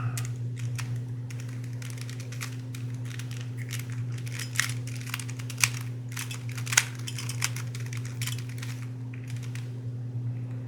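Rapid, irregular plastic clicks and clacks of a stickered Rubik's brand cube being turned by hand, a stiff cube that is hard to turn. The clicking thins out near the end, over a steady low hum.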